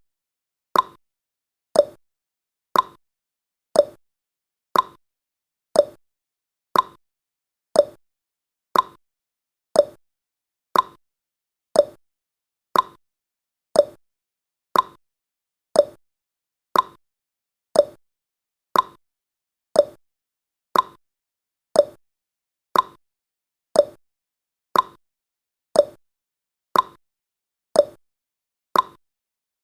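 Countdown timer's clock tick-tock sound effect, one sharp tick every second, alternating between a higher and a lower click.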